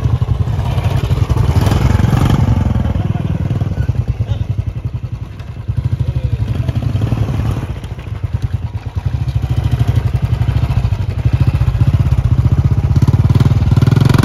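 Royal Enfield Classic 350's single-cylinder engine thumping under load as the bike labours through loose sand, with the revs dropping twice and then rising again.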